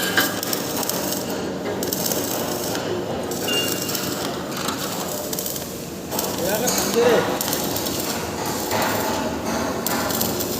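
CO2 (MIG/MAG) welding arc burning steadily, a continuous dense crackle, a little louder from about halfway through.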